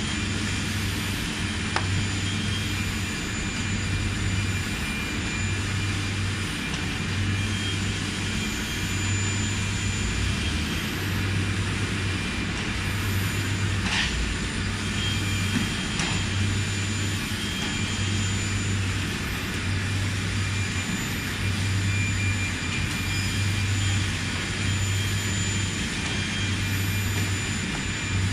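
Steady industrial machinery hum with a low throb that pulses on and off slightly slower than once a second, and a few faint clicks, the clearest about halfway through.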